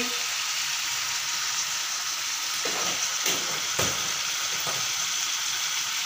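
Diced ash gourd (petha) in a sugary masala sizzling steadily in a kadhai on the stove, with a few light knocks around the middle.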